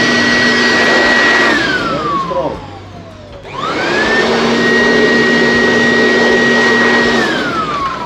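Electric 2-in-1 air blower and vacuum cleaner running at full speed with a steady high whine. About a second and a half in it is switched off and winds down with a falling pitch. It is then switched on again, spinning up quickly to full speed, and near the end it is switched off and winds down once more.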